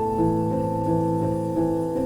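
Background music: soft piano playing slow, sustained chords, with new notes entering gently every half second or so.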